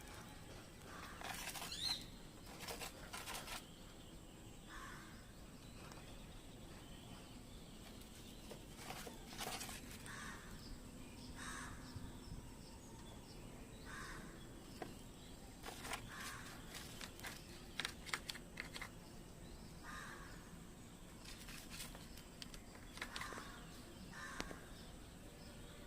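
Faint, short harsh bird calls repeated every few seconds, with scattered sharp clicks; the loudest moments are clicks about two seconds in and again around eighteen seconds.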